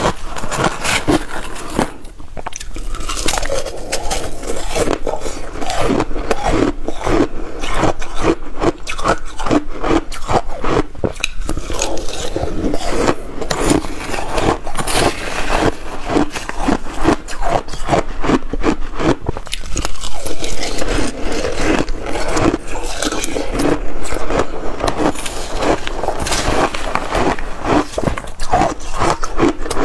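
Crushed ice mixed with passion fruit pulp being bitten and chewed: a steady run of loud, close crunches, many to the second. A metal spoon scrapes and scoops through the ice in a plastic bowl between bites.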